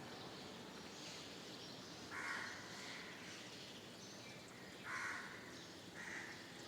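Crows cawing, three loud harsh caws about two seconds in, near five seconds and just after six, over repeated high-pitched chirping of smaller birds.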